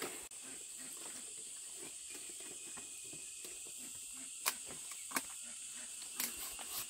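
Steady high-pitched drone of insects in the background, with a few sharp clicks or knocks, the loudest about four and five seconds in.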